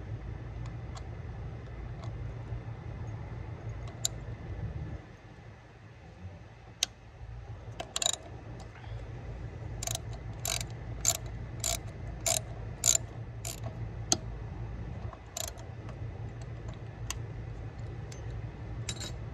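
Socket ratchet wrench clicking as it turns a bolt on the thermostat housing of a 1993 Corvette engine, with sharp clicks about every half second in a run between about 8 and 15 seconds in and a few single clicks around it. A steady low rumble lies underneath.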